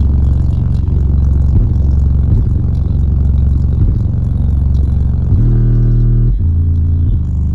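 Heavy, loud bass from a single Sundown X18 18-inch subwoofer in a ported box tuned to 28 Hz, playing a hip-hop bass line. The bass steps up to a higher note for about a second, about five and a half seconds in.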